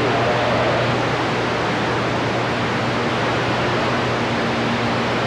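Steady static hiss from a CB radio receiver on the 27 MHz band, with a low steady hum under it: open-band noise while the operator stands by between contacts.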